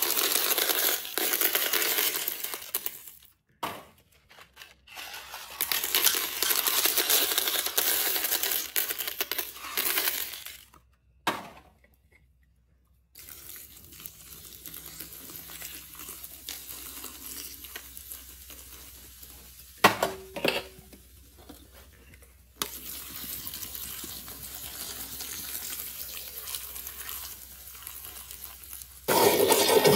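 Handfuls of small hard candies poured from boxes, rattling down onto a toilet bowl piled with plastic eggs and candy, in two long pours. Then soda poured from cans into the bowl, splashing and fizzing softly, with a couple of sharp clicks about twenty seconds in. Near the end a toilet flush starts with a loud rush of water.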